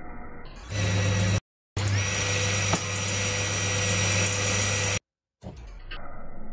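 Circular saw motor running at speed: a steady low hum with a thin high whine, starting about a second in, dropping out abruptly for a moment, then running about three more seconds before cutting off suddenly. There is one sharp tick near the middle.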